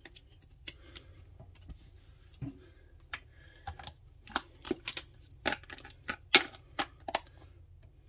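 Hard plastic hummingbird feeder parts clicking and tapping as they are handled. A few scattered clicks at first, then a quick, irregular run of sharp clicks through the second half.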